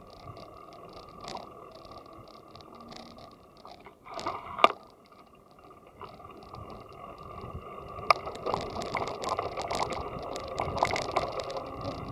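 Bicycle being ridden along a paved bike path: steady rolling noise with rattling from the bike, a sharp knock about four and a half seconds in, and a busier run of clicks and rattles over the last four seconds.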